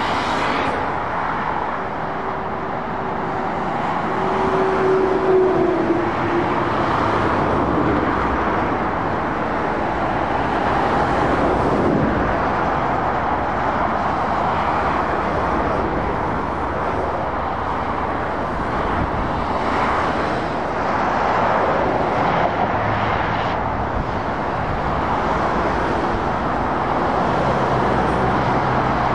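Steady road traffic: lorries, vans and cars passing with continuous tyre noise and engines. One vehicle's pitch drops as it goes by about twelve seconds in, and a lorry's low engine hum grows near the end.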